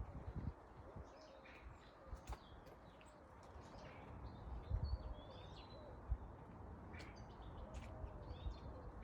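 Birds chirping in short scattered calls, with soft repeated cooing underneath and a few low thumps.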